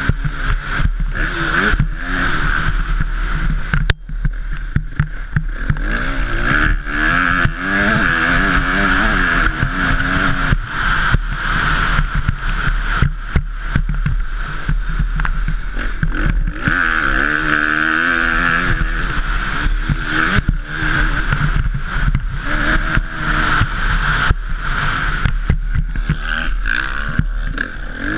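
Honda CRF 250 motocross bike's single-cylinder four-stroke engine revving hard and backing off again and again as the rider accelerates, shifts and brakes around the track. Choppy wind rush sounds under it.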